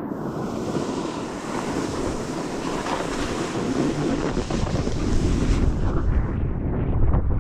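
Wind buffeting the microphone. A steady high hiss runs beneath it and stops about six seconds in, while a low rumble grows louder through the second half.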